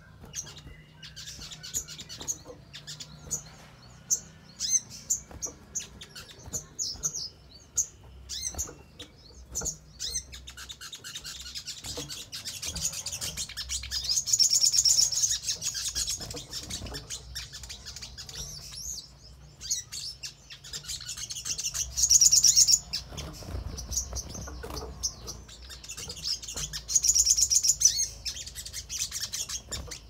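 Olive-backed sunbird (sogon) calling and singing: sharp, high chirps at first, then from about ten seconds in a fast, continuous twittering song that peaks loudly three times. Brief flutters and knocks from the bird hopping about come in between.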